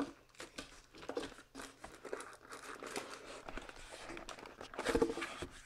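Packaging of a Blue Snowball microphone being handled as hands try to open it: faint scattered crinkling and rustling, a little louder about five seconds in.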